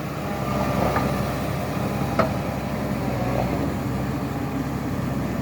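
Diesel engine of a Morooka MST crawler carrier running steadily during a test run after repair, with one sharp click about two seconds in.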